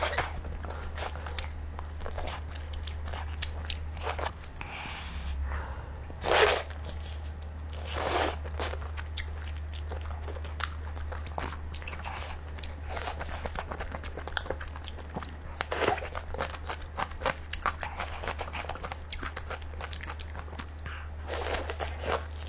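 A person eating steamed H'Mông chicken close to the microphone: biting and chewing with many small mouth clicks and a few louder bites, over a steady low hum.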